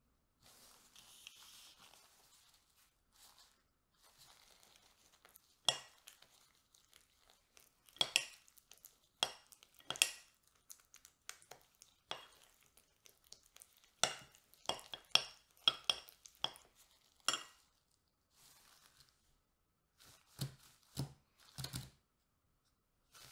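A plastic spoon stirring thick yogurt in a glass bowl: a run of short scrapes and clicks against the glass. Near the end come a few dull knocks.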